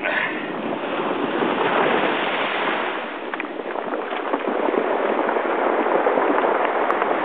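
Ocean surf breaking and washing over a cobble beach: a steady rushing noise that swells about two seconds in, eases near three seconds, then builds again.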